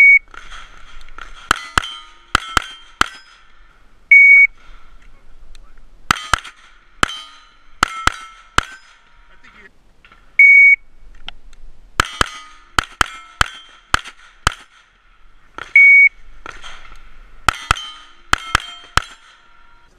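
An electronic shot timer beeps, and a pistol fires a quick string of about five shots at steel plates; this happens four times over.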